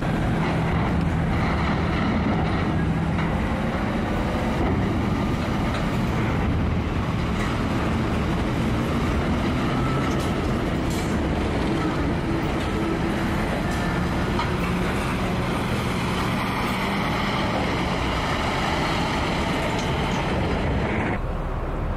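Heavy box trucks with diesel engines running as they drive past, giving a loud, steady engine noise.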